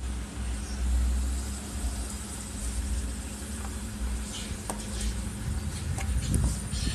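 Small air-cooled single-cylinder motorcycle engine idling steadily while running on LPG fed from a mini gas canister through a hose into the intake. A few light clicks come over it near the end.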